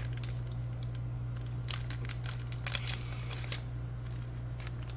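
Popping candy crackling: a scatter of tiny sharp pops and crackles at irregular spacing, over a steady low hum.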